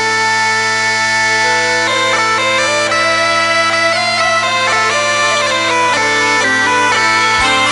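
Bagpipe music: a melody of changing notes played over steady low drones. The drones stop near the end.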